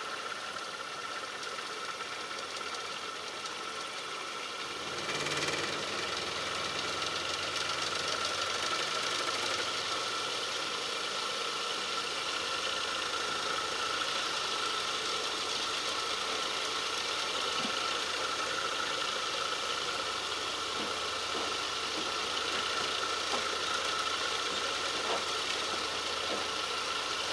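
Small electric drive motor spinning the magnet rotor of a Marinov motor-generator, a steady mechanical running sound with a high tone. About five seconds in it gets louder as the rotor comes up to speed.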